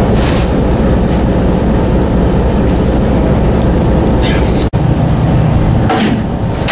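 A boat's engine running with a steady low drone, with a few short knocks over it and a brief gap about two-thirds of the way through.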